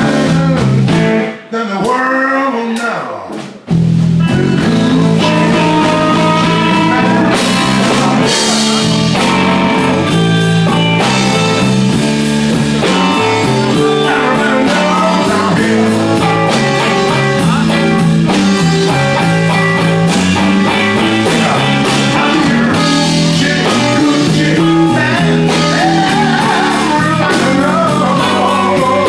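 Live blues band: a singer with electric guitars, bass guitar and drum kit. The opening few seconds are sparse with no bass, then about four seconds in the bass and drums come in and the full band plays on steadily.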